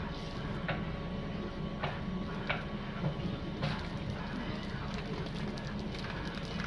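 Oil sizzling on a hot flat steel griddle as a sheet of noodles is laid on it, with a few sharp crackles, over a steady low hum.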